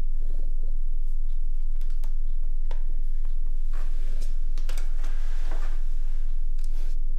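Scattered light clicks and taps, like typing on a keyboard, over a loud steady low electrical hum.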